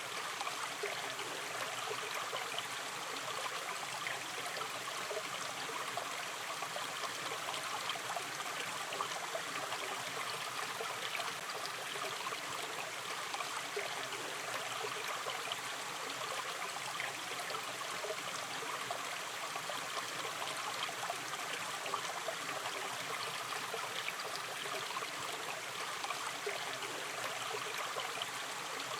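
A gentle river stream running over stones, a steady babble and trickle of flowing water.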